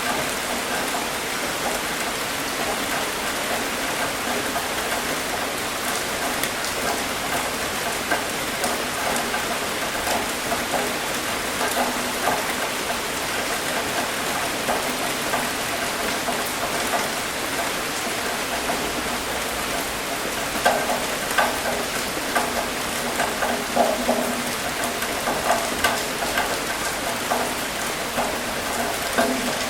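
Steady rain falling, a dense even hiss with a crackle of individual drops hitting a surface. In the second half, louder single drop hits stand out here and there.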